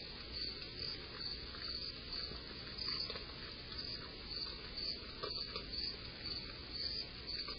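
Crickets chirping in a steady, even pulsing rhythm, with a few faint clicks.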